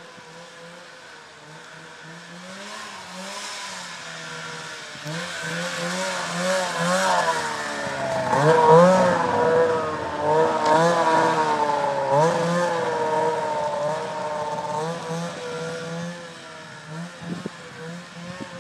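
Arctic Cat ZL600 two-stroke snowmobile engine revving up and down as the sled rides past, loudest about nine seconds in, then fading as it moves away.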